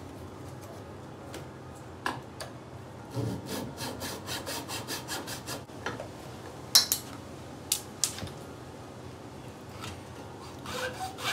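Small hand saw cutting through a 6 mm wooden dowel to trim it flush with a drawer front: a run of quick back-and-forth scratchy strokes, a few sharp knocks in the middle, and more strokes near the end.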